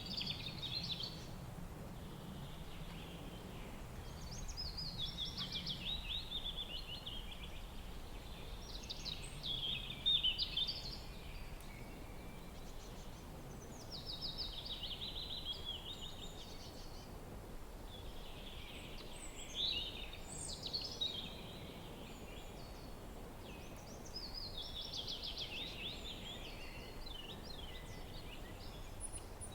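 A songbird singing, repeating a phrase of quick notes that fall in pitch about every four to five seconds, over a steady low rush of wind.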